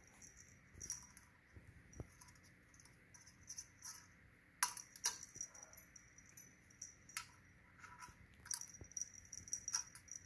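Scattered light metallic jingles and clicks of a feather cat toy and its thin chain, knocked about as a kitten bats and bites it on a tile floor. The loudest clinks come in a pair about halfway through.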